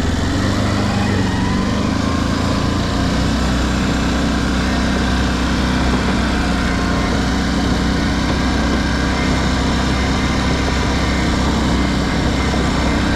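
Can-Am Outlander 570 ATV's V-twin engine running steadily while the quad cruises in high range, the revs rising a little in the first couple of seconds.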